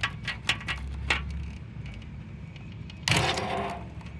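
Light metallic clicks and clinks of washing-machine parts and fixings being handled, over a low rumble. About three seconds in there is a brief, louder rushing noise.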